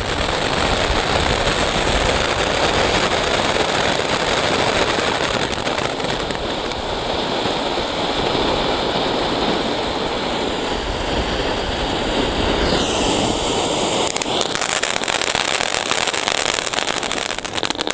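King-size ground fountain firework spraying sparks: a steady, loud hissing rush dense with crackling. A short falling whistle sounds about three-quarters of the way through, and it dies down right at the end.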